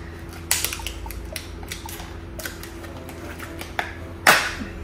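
Small metal tools and parts clicking and clattering as they are handled and packed into a tool bag, with one louder clack about four seconds in. A steady low hum runs underneath.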